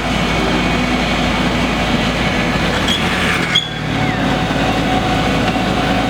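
JCB 3DX backhoe loader's diesel engine running steadily while it works. A sharp click comes a little past halfway, and the level dips briefly after it.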